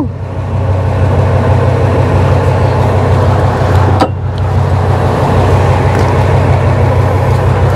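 Fishing boat's engine running with a steady low hum, under a wash of wind and sea noise.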